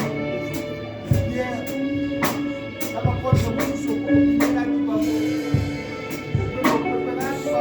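Church worship music: held instrumental notes over a steady drum beat.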